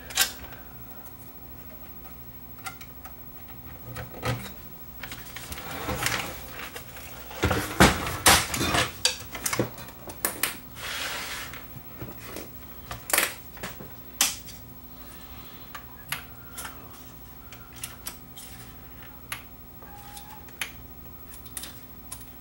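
Scattered clicks, knocks and short scrapes of hands working on a cassette deck and its parts, with a faint steady hum underneath.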